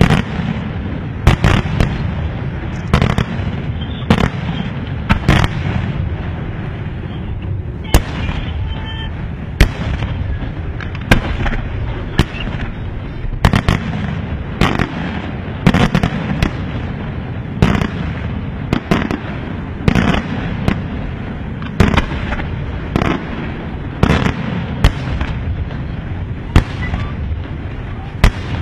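Fireworks display: aerial shells bursting one after another, sharp bangs about once or twice a second over a continuous low rumble, with a brief lull about a third of the way in.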